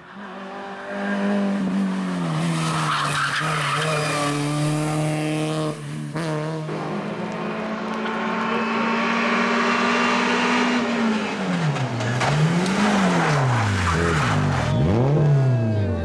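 Renault Clio RS N3 rally car's naturally aspirated four-cylinder engine pulling hard and changing gear, with tyres squealing. Over the last few seconds the revs rise and fall sharply several times as it brakes and downshifts into a bend.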